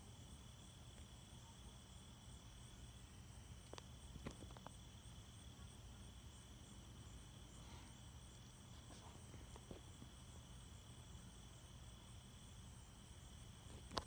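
Faint steady chorus of night insects, several high trills running together, with a few faint clicks about four seconds in and near the end.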